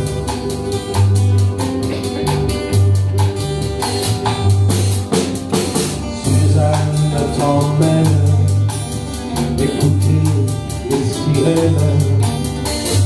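Small live band playing an instrumental passage of a folk song: strummed acoustic guitars, a Selmer-style jazz guitar, a bass line with notes changing about once a second, and a drum kit keeping the beat.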